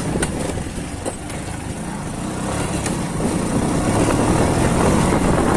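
A small motorcycle running as it is ridden, with a few sharp knocks in the first second or so as the tyres cross a slatted bridge deck. The riding noise grows louder from about three seconds in.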